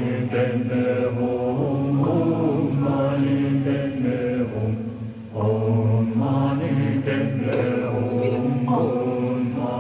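Background music: a chanted vocal line over a steady low drone.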